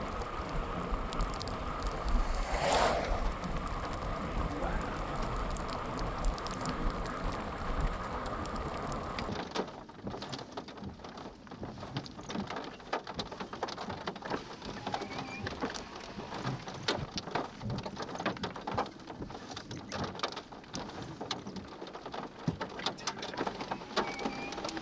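Rain and hail falling: a dense rain hiss with a low rumble, then, about ten seconds in, a sudden change to a quieter stretch full of sharp, irregular ticks of hailstones striking.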